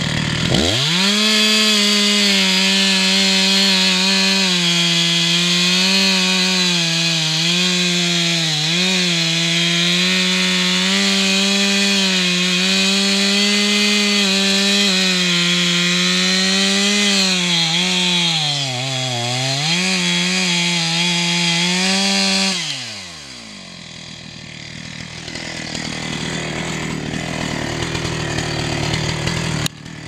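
Two-stroke chainsaw running at full throttle while cutting wood, its pitch sagging as the chain bites. About three-quarters of the way through it drops back to idle, then it revs up again at the very end.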